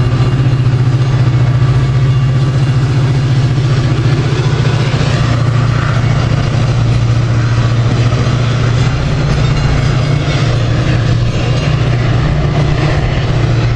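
Diesel locomotive of a Metra commuter train standing with its engine running, a loud, steady low drone.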